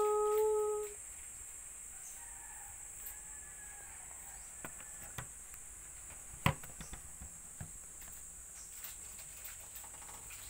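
A woman's sustained sung note ends about a second in. After it comes a pause with faint background: a steady high insect drone, a faint distant rooster crowing, and one sharp knock past the middle as the phone and microphone rig are handled.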